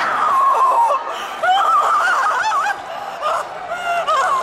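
A woman screaming in horror: high, wavering cries that rise and fall without words.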